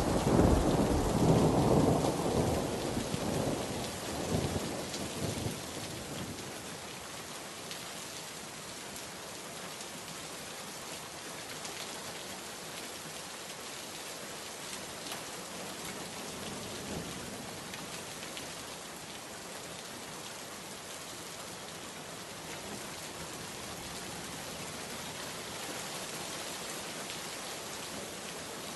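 A rumble of thunder rolling away and fading out over the first several seconds, then steady rain falling for the rest, with scattered individual drops.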